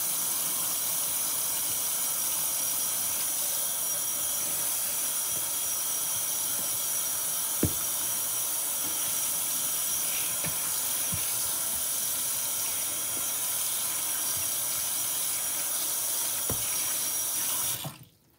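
Steady fizzing hiss of water and mouthwash foam in a stainless-steel sink, with a few soft squelches as a hand presses down on a soaked sponge. The hiss cuts off suddenly near the end.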